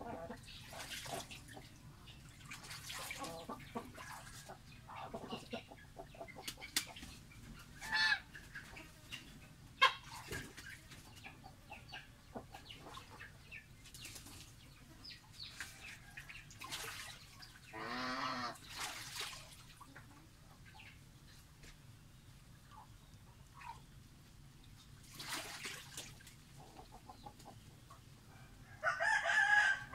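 Domestic poultry calling off and on: scattered short clucks and calls, a longer pitched call midway, and a louder call near the end.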